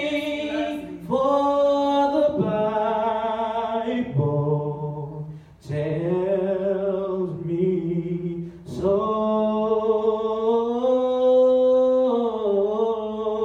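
A man singing a slow gospel hymn solo, without accompaniment. He holds long notes and breaks briefly for breath.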